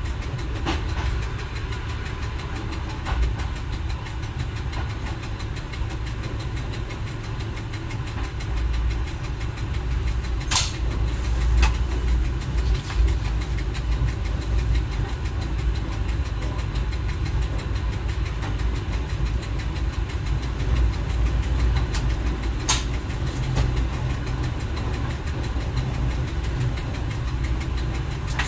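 Diesel engine of a Y1 railcar running steadily, heard from inside the driver's cab as the railcar rolls along the track. A few sharp clicks stand out, the clearest about ten and a half seconds in and again about twenty-three seconds in.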